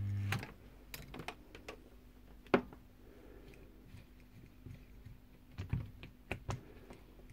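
Shaded-pole fan motor humming on mains power, cut off suddenly a moment in; then scattered light clicks and taps from a hand on the motor and its shaft, one sharp click the loudest. The motor does not run properly, which the owner puts down to a bad sleeve bearing.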